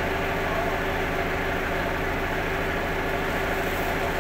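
Forklift engine idling steadily under a load of stacked sacks.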